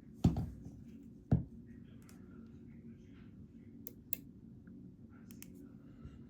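Picking tools working in an EVVA ICS dimple lock: two sharp knocks in the first second and a half, then a few light metallic ticks.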